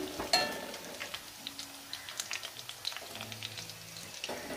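Hot oil crackling and spitting around frying chicken pieces, with one metal slotted spoon clink that rings briefly about a third of a second in as pieces are lifted out.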